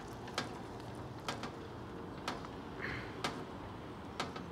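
Sharp, evenly spaced ticks about once a second from a railway level crossing with its barriers down and red lights showing.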